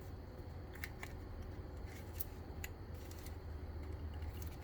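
A few faint, sharp clicks and handling sounds of a plastic wiring loom being worked loose from a motorcycle display where it is held in tight, over a low steady hum.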